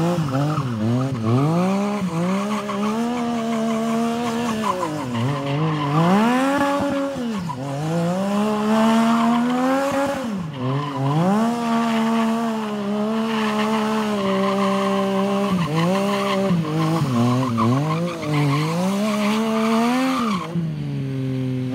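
Yamaha MT-09's three-cylinder engine revving hard through a burnout and donuts. The revs rise, hold high and drop again many times, over the noise of the rear tyre spinning on the tarmac.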